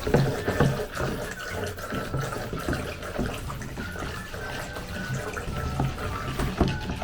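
A spoon stirring a runny homemade glue-and-contact-lens-solution slime mixture in a bowl: wet sloshing and squelching with small clicks of the spoon against the bowl. The mixture is still watery and has not set into slime.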